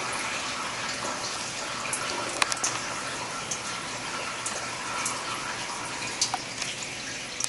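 Flood coolant from a Tormach PCNC 1100 mill's coolant system spraying and splashing inside the machine's enclosure: a steady watery hiss with scattered small ticks of drops.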